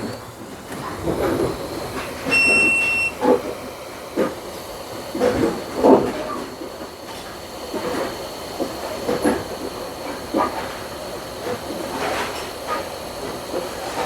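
Hot-air rework station blowing with a steady hiss and a thin high whine, heating surface-mount solder joints to reflow them. A short electronic beep sounds a little after two seconds in, and scattered light taps and knocks of tools on the board come through the hiss.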